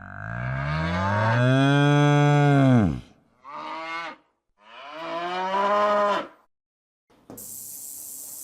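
Cow mooing three times: a long moo that rises and falls in pitch, then a short one and a longer one. A steady hiss starts near the end.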